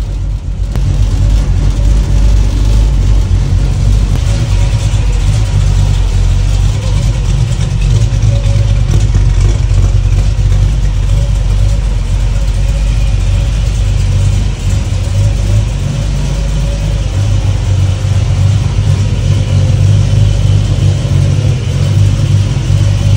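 Old truck engine idling roughly and unevenly, a deep steady rumble that gets louder about a second in.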